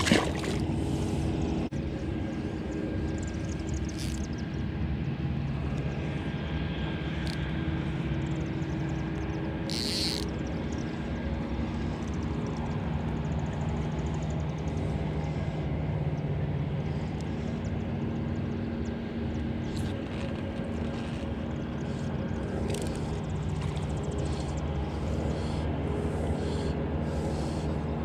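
A steady low engine drone with a constant hum runs throughout. A few short clicks and swishes sit on top of it, the clearest about ten seconds in.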